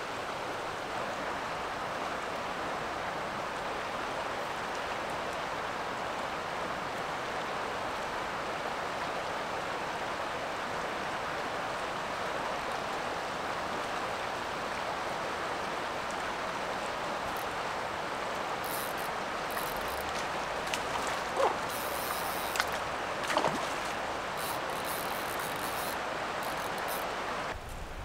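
Steady rush of a fast-flowing river over riffles, with a few faint clicks near the end.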